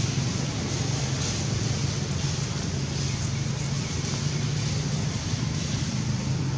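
Steady outdoor background noise: a constant low rumble with a hiss over it, unchanging throughout.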